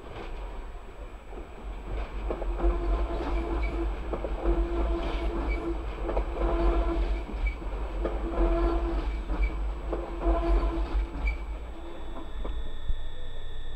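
A Pågatåg electric multiple unit (Alstom Coradia Nordic X61) runs past along the platform, its wheelsets clattering over rail joints in groups every couple of seconds over a low rumble. A steady high tone sounds near the end as the train moves away.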